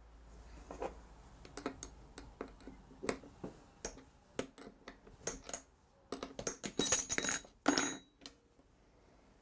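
Scattered sharp metal clicks and clinks as a cutter is changed in a Trend T5 plunge router, with a denser run of bright, ringing clinks about seven seconds in.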